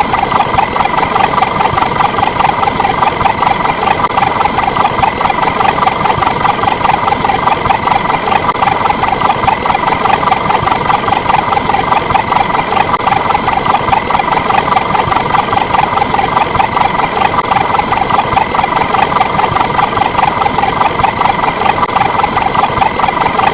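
A loud, continuous, engine-like drone with a fast, even pulsing and a steady high-pitched whine through it, unchanging throughout.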